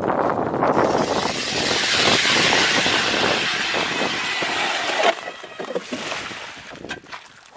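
Power ice auger boring a hole through lake ice: a steady grinding hiss of the blades cutting ice, with a faint motor whine, that stops abruptly about five seconds in.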